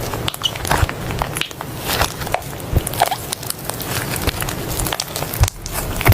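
Soft slime being squished and poked, giving a dense run of irregular sticky clicks and crackles, with a brief lull about five and a half seconds in.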